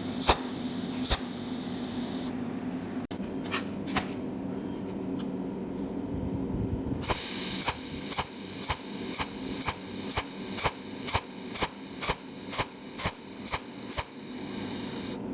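Cold welding machine firing weld pulses: a few single sharp snaps at first. Then, over a steady hiss, a rapid run of snaps about twice a second, each snap one weld spot laid overlapping the last, above a low steady hum.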